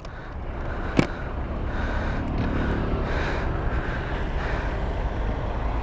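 A single sharp click about a second in, the latch or key lock of an alloy motorcycle top box, over a steady low rumble of traffic.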